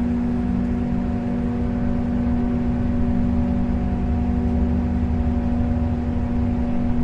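Boat engine running steadily during docking: a low rumble with a steady droning hum over it.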